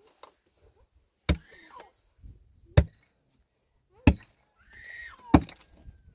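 Repeated sharp chopping blows, four strikes about a second and a half apart. Short high calls that rise and then fall come between the blows.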